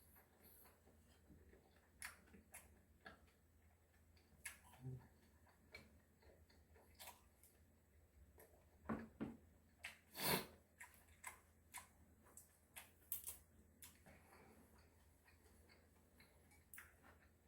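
Quiet eating sounds: scattered soft clicks and smacks of chewing, the loudest about ten seconds in.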